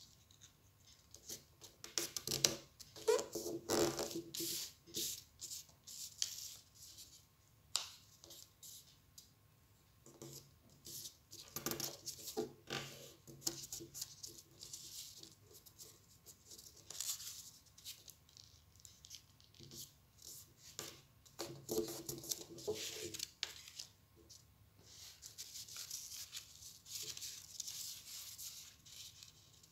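Sheets of paper rustling, rubbing and being creased by hand while a paper star is folded, in irregular scratchy rustles with short pauses between them.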